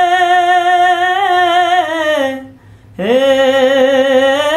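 A man singing a jhumur folk song with no accompaniment: a long held vowel ('he') with vibrato that sinks in pitch and stops about two seconds in, then after a brief breath a new long note that swoops up and is held.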